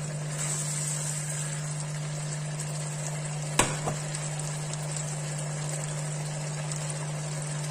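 Pork strips deep-frying in hot oil in a frying pan, a steady sizzle, while a wire spider strainer lifts them out. The strainer knocks sharply once about three and a half seconds in, with a lighter tap just after.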